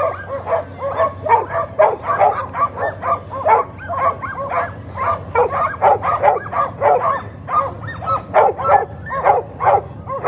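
A team of open-class sprint sled dogs in harness barking and yipping over and over, several calls a second, in their excitement to be off at the start.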